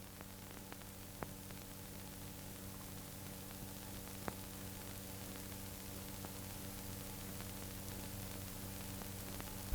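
Steady hiss and low hum of an old film soundtrack, with a couple of faint clicks.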